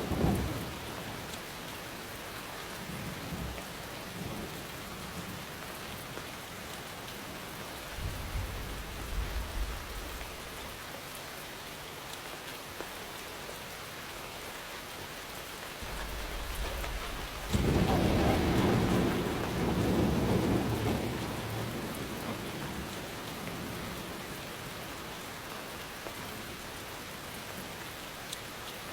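Steady rain hissing, with thunder rolling in the distance: weak low rumbles a few seconds in and again around nine seconds, then a loud peal of thunder that starts suddenly past the middle, rumbles on for several seconds and fades.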